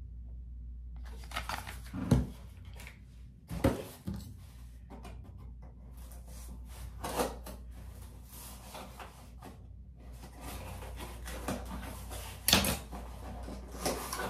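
Cardboard product boxes and packaging being handled and set down: light rustling with scattered knocks, the loudest about two, three and a half and twelve and a half seconds in.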